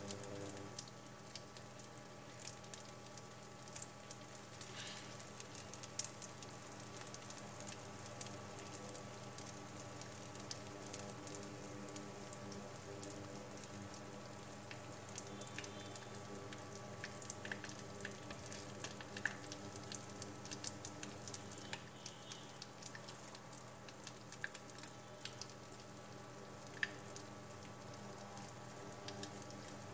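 Oil gently sizzling with scattered small crackles around a rice-paper and egg pancake frying in a pan on turned-down heat, over a faint steady hum.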